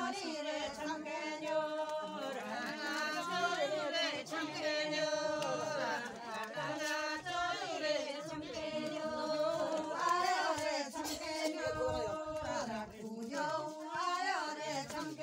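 A group of women singing a traditional folk song together, unaccompanied, in a steady repeating melody.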